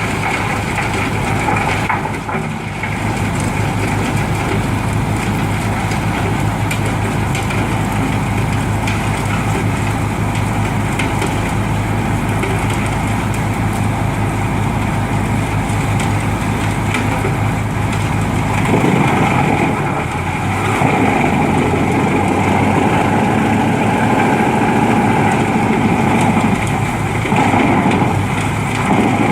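Heavy wood chipper's engine running steadily, its sound shifting about two-thirds of the way through.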